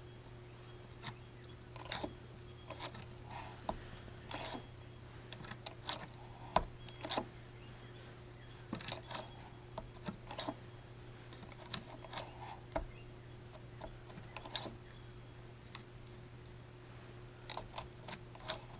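Saw chain links clicking and rattling as the chain is handled and repositioned in the sharpener's vise, a scatter of small irregular clicks over a steady low hum.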